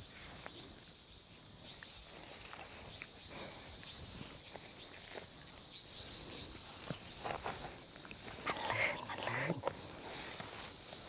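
Steady high-pitched insect chorus, with footsteps and rustling through grass and brush from someone climbing down a steep slope.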